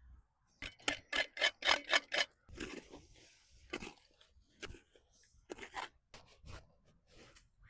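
Digging into earth by hand: a quick run of about eight scraping, crunching strokes about a second in, a longer scrape, then scattered single strikes.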